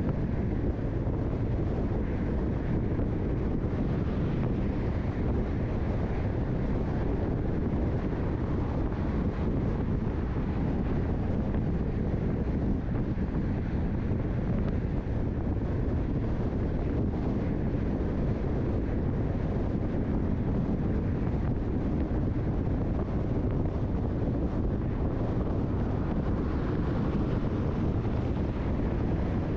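Steady road and wind noise of a car driving along: an even low rumble with no break or change.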